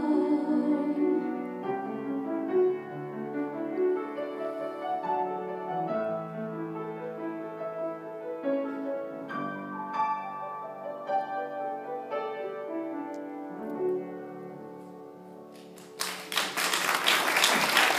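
Piano playing the slow closing bars of a worship song, the singer's last held note fading out in the first second. About two seconds before the end, applause breaks out.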